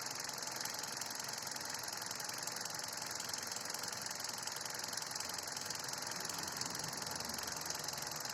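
Hyundai Solaris 1.4 inline-four engine running steadily with a fast, even ticking knock, the knock the owner is asking about.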